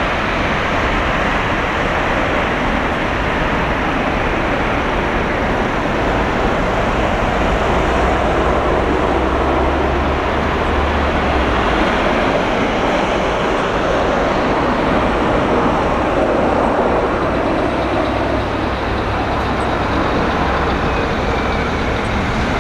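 Jet engines of an Airbus A330-300 airliner coming in to land: a loud, steady rushing noise with a low rumble that swells in the middle.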